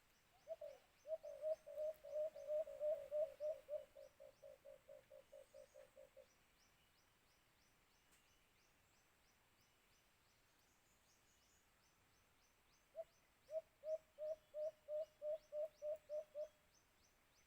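White-eared brown dove calling: a long run of rapid, low cooing notes that grows quicker and fainter over about six seconds, then a second, shorter run of about a dozen notes near the end.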